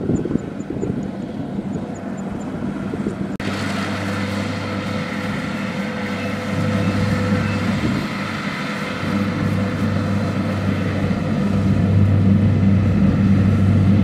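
Kubota DC-70 rice combine harvesters running steadily while harvesting: a diesel engine drone under the clatter of the cutting and threshing gear. The sound jumps abruptly nearer and fuller about three seconds in, then grows louder near the end as a machine comes closer.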